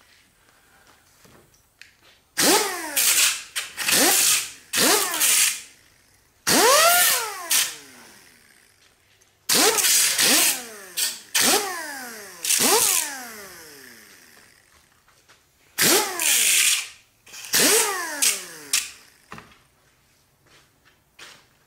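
Handheld high-speed power tool run in about a dozen short trigger bursts, each rising to a loud whine and winding down with a falling pitch as it coasts to a stop.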